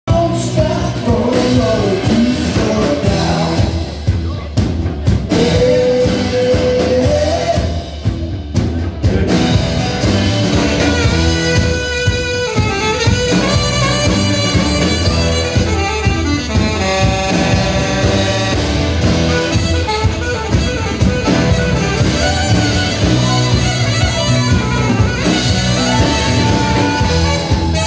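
Live rock band playing, with electric guitar, bass, drum kit and keyboards under a saxophone solo.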